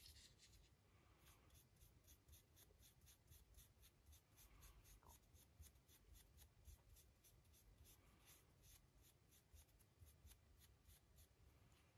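Faint, quick, regular scratching of a fine paintbrush stroking over a resin figure, about four strokes a second, over near-silent room tone.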